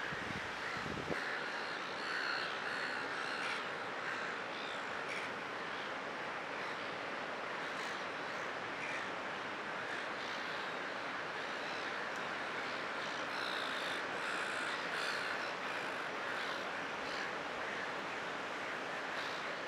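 Steady rushing wash of surf and breaking waves, with short bird calls over it now and then and a brief low thump about a second in.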